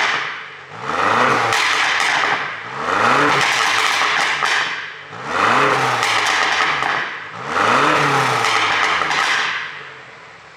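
BMW X6 M's twin-turbo V8 revved in four blips about two seconds apart, the pitch rising and falling each time, with crackling pops from the exhaust of a pop-and-bang tune.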